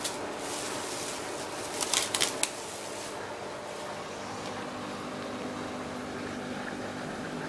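Clear plastic sheeting crinkling in a short burst of crackles about two seconds in, over a steady mechanical hum.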